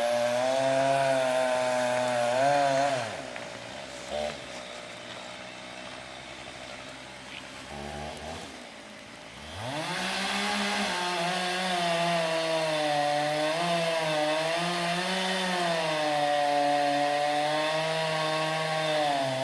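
Chainsaw cutting into a tree trunk during felling. It runs at high revs, drops back about three seconds in and stays low for several seconds, then revs back up at about ten seconds and keeps cutting, its pitch wavering under load.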